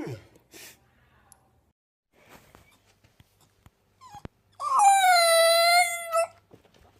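A dog yawning with a high-pitched whine, held for about a second and a half and falling slightly in pitch, a few seconds in.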